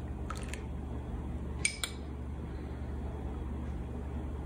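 A metal measuring spoon gives two quick, ringing clinks against kitchenware about a second and a half in, with a few fainter taps before them, over a steady low hum.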